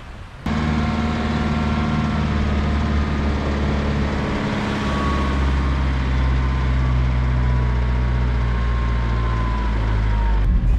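An engine running steadily at an even speed, cutting in abruptly about half a second in.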